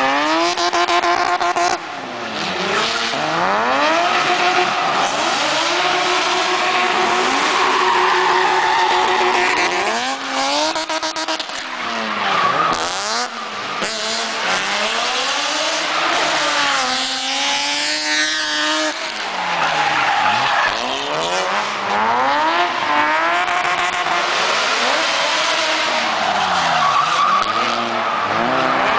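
BMW M5 drift car's engine revving high, its pitch rising and falling over and over as the throttle is worked, with the tyres squealing and skidding through the slide.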